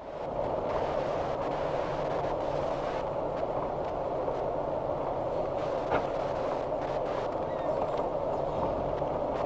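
Steady engine and road noise inside a slowly moving car, heard through a dashcam microphone, with a single click about six seconds in.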